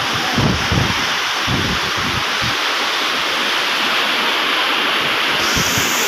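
Steady noise of rough surf washing onto a sandy beach, with wind gusts rumbling on the microphone.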